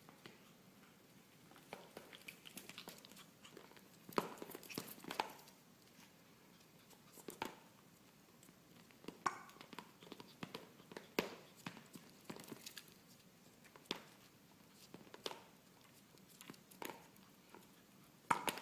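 A small pet's claws tapping and skittering on a hardwood floor as it pounces on and drags a rubber chicken toy, with irregular light knocks of the toy on the floor. The taps come in short flurries.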